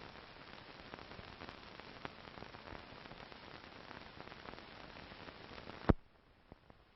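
Old film soundtrack with no programme sound, only steady hiss and scattered crackling clicks. About six seconds in, a single loud pop, after which the sound drops to a much fainter hiss.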